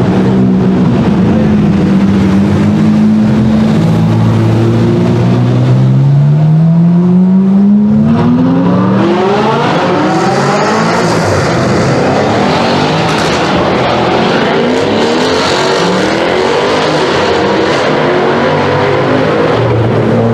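High-performance car engine and exhaust under acceleration. The engine note climbs steadily in pitch from about four seconds in. From about eight seconds it turns higher and busier, with repeated rising sweeps.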